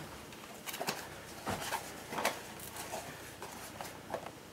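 Faint, scattered taps and rustles of packaging being handled, including a boxed Pop vinyl figure's cardboard-and-plastic box, with about half a dozen light clicks spread irregularly.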